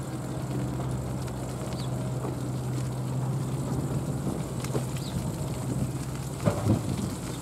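A steady low hum that stops about six seconds in, followed by a few short knocks.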